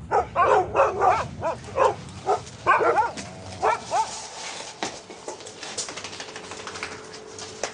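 Dogs barking in quick short bursts, about a dozen barks in the first four seconds, then falling quiet.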